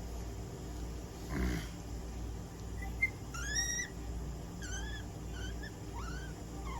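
Guinea pig squeaking: a run of short, high, arching squeaks from about three seconds in. These follow a brief noisy scuff about a second and a half in and a sharp click just before the squeaks.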